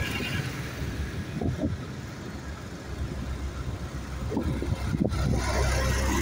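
Farm tractors' diesel engines driving past one after another. The engine sound grows louder near the end as the next tractor comes close.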